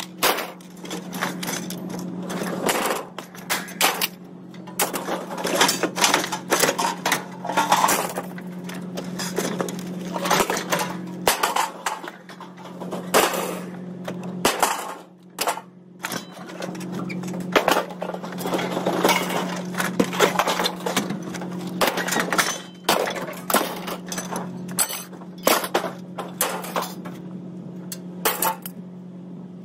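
Scrap metal being unloaded from a trailer by hand: a steady run of irregular clanks, rattles and crashes as pieces are thrown off onto the pile and shifted on the trailer deck, over a steady low hum.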